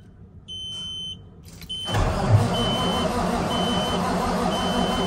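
A semi truck's starter cranks the cold diesel engine, starting loud and steady about two seconds in. A dashboard warning buzzer beeps before the cranking and keeps beeping about once a second during it.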